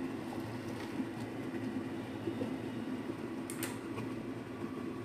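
Chopped okra slid off a cutting board into a non-stick frying pan, with a few light knocks and a short cluster of clicks about three and a half seconds in. All of this sits over a steady low hum.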